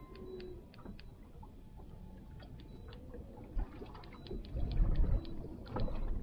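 Small boat rocking on open water, water lapping against the hull, with scattered light ticks and clicks. About two-thirds of the way in, louder irregular low thumps and rumbles take over.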